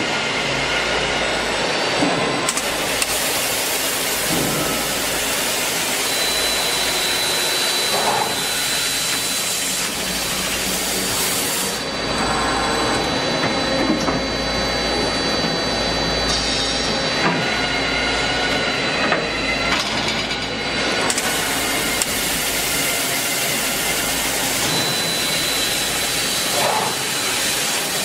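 KOTEC Newrun 7 CNC beam drilling machine drilling 22 mm holes in a steel box beam: the spindle runs steadily and the drill cuts through the steel. A high hiss joins in a couple of seconds in, drops out about halfway, and returns later.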